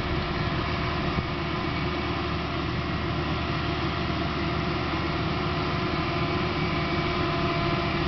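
Caterpillar 420E backhoe loader's diesel engine running steadily at an even pitch.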